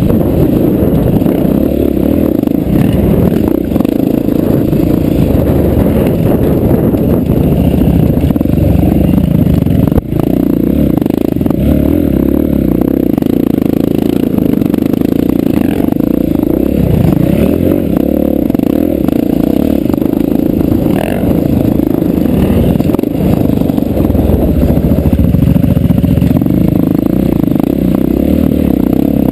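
KTM 690 dirt bike's single-cylinder engine running under throttle, heard from a camera mounted on the bike as it rides over rough dirt. The sound is loud and steady, dipping briefly about ten seconds in.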